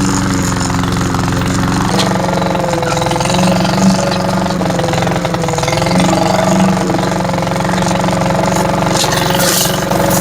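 Cub Cadet walk-behind mower's Powermore 173cc single-cylinder engine running steadily while mowing, its tone shifting slightly about two seconds in. The owner judges its RPM a little low.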